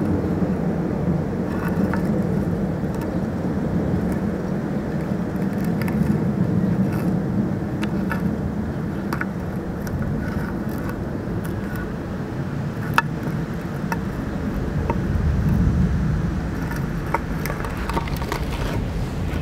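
Steady low drone of a distant engine, swelling a little about sixteen seconds in, with faint scattered ticks over it.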